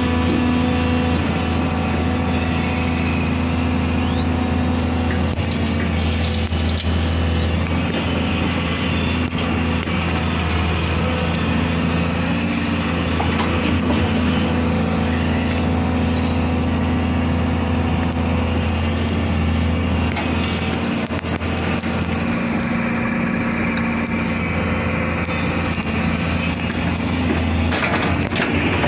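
Tata Hitachi excavator's diesel engine running steadily as the boom and arm dig, heard from the operator's cab, with a constant low hum and a slight easing about two-thirds of the way through.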